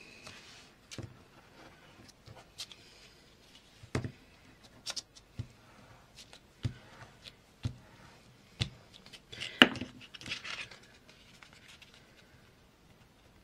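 Paper and card being handled, pressed and smoothed down on a cutting mat while gluing, with scattered light taps and a sharper click about two-thirds of the way through, followed by a brief rustle.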